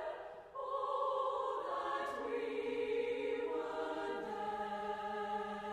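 Women's choir singing slow, held chords that change about every two seconds, with a lower held note coming in about four seconds in.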